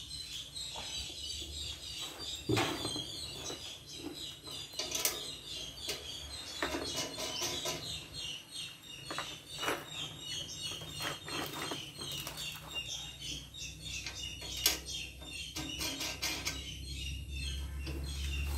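Small birds chirping continuously in the background, with occasional light clicks and knocks as the white metal rack parts are handled, the sharpest a couple of seconds in and another near the end.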